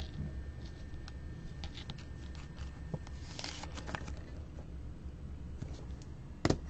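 Light handling noises of trading cards and their plastic holders and packaging: scattered soft clicks and rustles, with one sharper click near the end, over a steady low hum.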